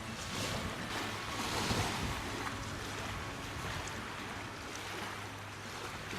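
Small waves lapping at a lake shore, with wind on the microphone, rising and falling gently. A faint steady hum sits underneath.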